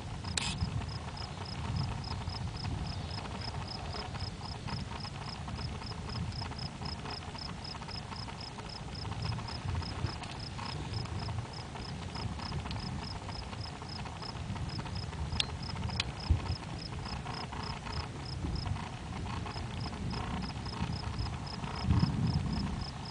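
An insect chirping steadily in short, even pulses, about three a second, with a brief pause late on. A continuous low rumble lies underneath and swells near the end.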